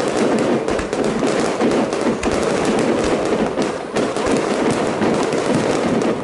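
Fireworks going off in a dense barrage: aerial shells bursting in quick succession, running together into a loud, nearly continuous stream of bangs and crackling.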